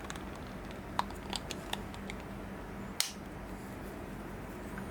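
Light plastic and metal clicks of a screwdriver being handled: a few soft clicks, then one sharper click about three seconds in, as the handle that stores its bits is worked.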